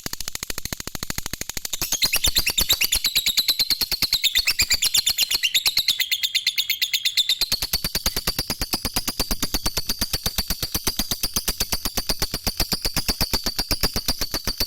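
Lovebird 'ngekek' song: one long, unbroken run of rapid, even chattering pulses. It wavers in pitch for the first half, then holds steady.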